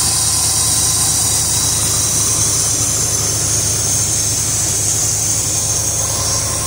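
1973 Corvette Stingray's Chevrolet V8 idling steadily, running again after 25 years of sitting.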